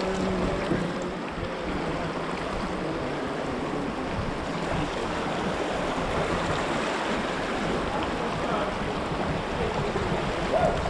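Turbulent whitewater rushing steadily around a kayak in a rapid of boils and swirling eddies, with the kayaker's paddle strokes in the water and wind buffeting the camera microphone.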